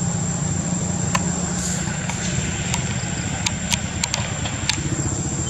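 A steady low mechanical hum, like a motor running, under a constant thin high-pitched whine, with a handful of sharp clicks scattered through the middle.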